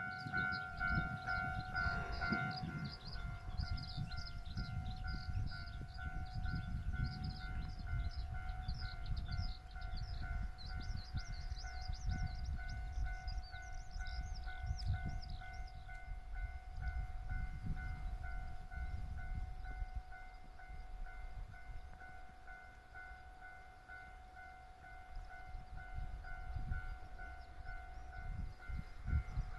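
Level crossing warning bell ringing in an even repeating pattern, over the low rumble of a JR West 103 series electric train running past. High chirping comes and goes during the first half.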